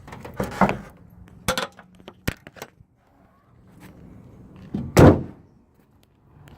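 Handling noise: rustling and a few sharp clicks, then one loud thump about five seconds in as a body panel on a 1990 Honda CRX is shut.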